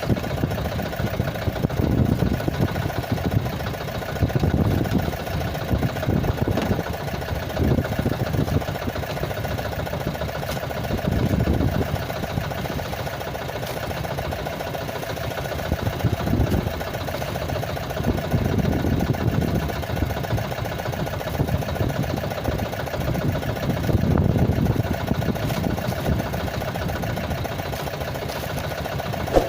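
Small fishing boat's engine running steadily at idle, a constant hum, with irregular low rumbles rising and falling every few seconds.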